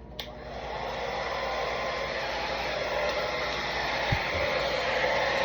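A handheld blow dryer clicks on and spins up into a steady airy rush, running on low speed with high heat. A brief soft knock about four seconds in.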